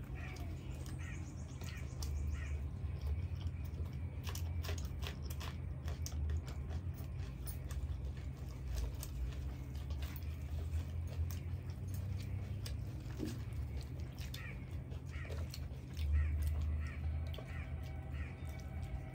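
Close-miked eating sounds: crisp fried bhature bread being torn by hand and chewed, with many crackling clicks.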